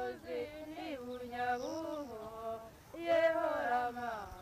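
A voice singing a slow melody in held notes joined by sliding turns, with brief breaks between phrases.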